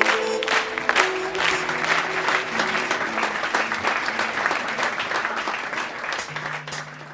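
Audience applauding as the music ends, with a low held note under it near the end, the whole fading out.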